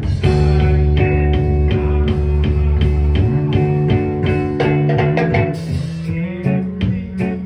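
Live rock band playing: electric guitar, bass guitar and drum kit, without vocals. A heavy, sustained bass part drops out about three seconds in, leaving guitar and drums.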